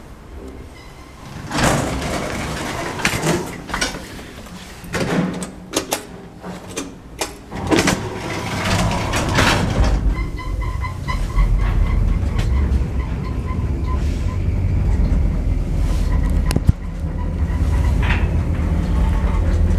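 1995 KMZ (Karacharovsky plant) passenger lift: its sliding doors open and close with a run of clacks and knocks, then about halfway through the cab sets off and travels with a steady low rumble.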